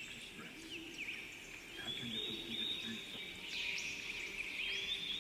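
Many small birds chirping in a dense, continuous chorus of short high chirps and quick glides, busier and louder from about the middle on.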